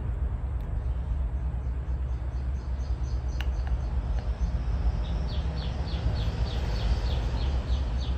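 A bird chirping repeatedly in the background, short high falling chirps about three a second from about five seconds in, over a steady low rumble, with one click about three seconds in.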